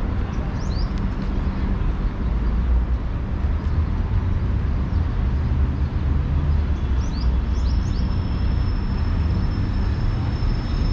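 Outdoor city street ambience: a steady low rumble of traffic, with a few short high bird chirps about half a second in and again around seven seconds.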